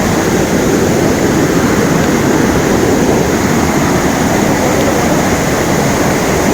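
Waterfall rushing: a loud, steady noise of falling water with no change.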